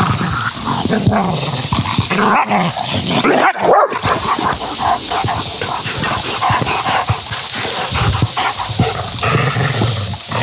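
Dogs barking repeatedly in play, a German Shepherd and a black dog chasing and jostling each other, with short calls that rise and fall in pitch.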